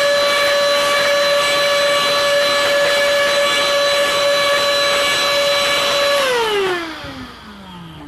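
Handheld cordless electric cleaning tool's fan motor running at a steady high whine against the dust-caked vent grille of a projector. About six seconds in it is switched off and the whine slides down in pitch as the motor spins down.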